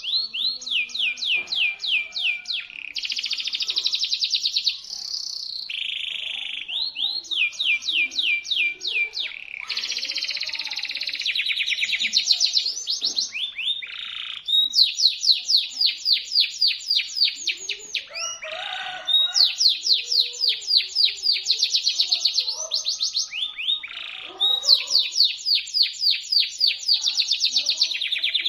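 Local canary singing, shrill and sharp: long rapid trills of repeated falling notes, alternating with held buzzy notes and short pauses.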